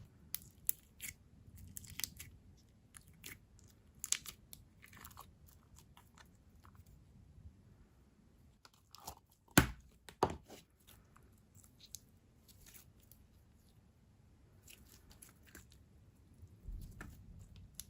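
Thick, glossy slime being handled by hand: scattered soft sticky clicks and crackles, with two louder knocks about ten seconds in.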